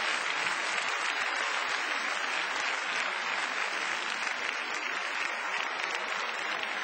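Large arena crowd applauding steadily, a dense patter of many hands clapping.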